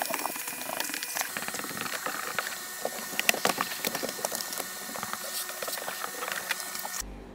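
Vacuum cleaner running, its nozzle worked over a carpeted car cargo floor: a steady hiss and motor whine with many small clicks scattered through it. It cuts off abruptly near the end.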